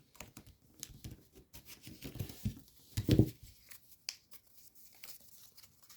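Folded paper rustling and crinkling as a creased origami model is handled and a crease is sharpened, with scattered short crackles and a louder handling noise about three seconds in.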